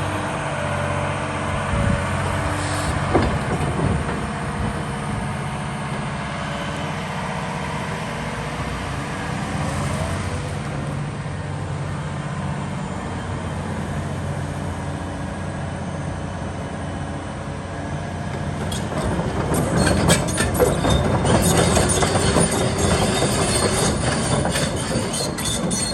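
Liebherr R946 SHD long-reach excavator running, its diesel engine steady under hydraulic load. About two thirds of the way through, louder metallic clanking and squealing set in and continue to the end.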